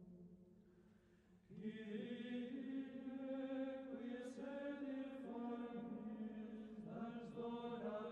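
Soft, slow, chant-like background music of long held notes: it dies down over the first second and a half, then a new phrase comes in and carries on with slowly changing pitches.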